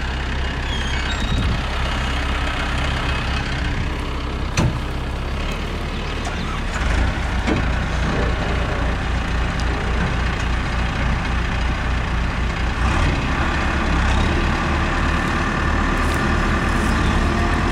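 John Deere backhoe loader's diesel engine running under load as the machine, stuck in mud, works to free itself. It gets louder about seven seconds in and again near thirteen seconds.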